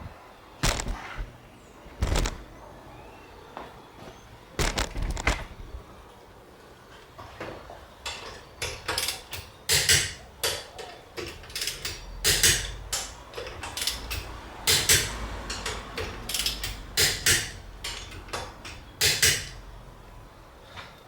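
Hand-tool work on a car: a run of sharp metallic clicks and clacks, a few scattered at first and then coming thick and irregular for about ten seconds from the middle on.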